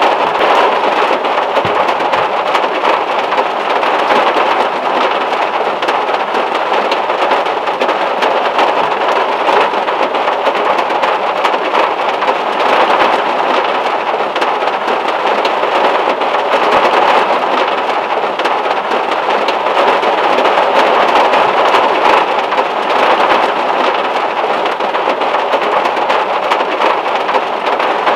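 Heavy rain falling on the metal roof of a Volkswagen Beetle, heard from inside the car: a dense, steady patter of raindrops.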